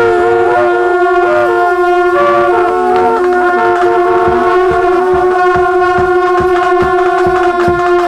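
Festive wind-instrument music: a reedy pipe melody played over a held drone note. A drum joins about three seconds in, beating steadily at roughly two to three strokes a second.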